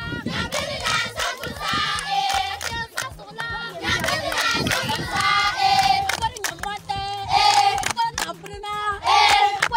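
A crowd of schoolchildren shouting together in several loud, high-pitched bursts with short gaps between them.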